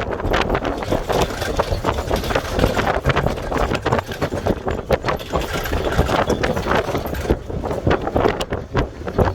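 Vehicle on the move: a steady low rumble with frequent irregular knocks and rattles.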